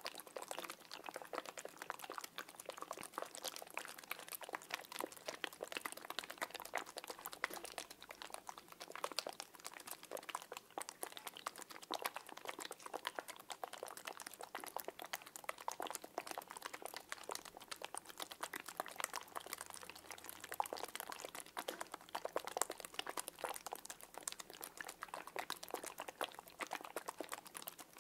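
Small water-filled squishy balls squeezed and worked in both hands close to the microphone, making a continuous dense patter of wet squelches and fine clicks.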